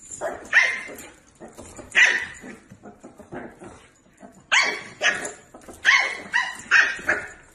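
A puppy barks about eight times, in short high barks, spaced out at first and then in a quicker run over the last few seconds.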